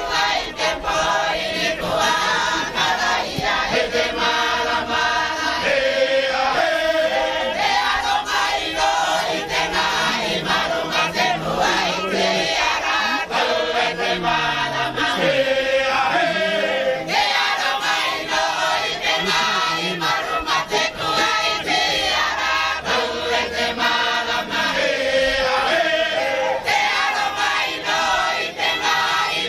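A mixed group of men and women singing together in chorus, many voices at once.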